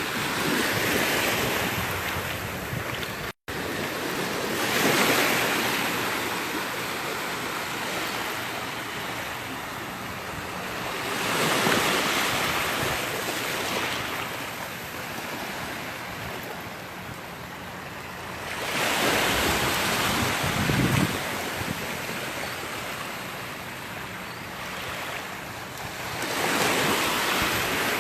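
Gulf of Mexico surf: small waves breaking and washing up the beach, the noise swelling and easing about every seven seconds.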